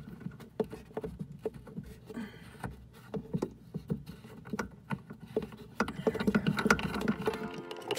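Irregular small clicks, taps and handling noises of hands threading mounting nuts onto faucet shanks under a sink, getting busier near the end.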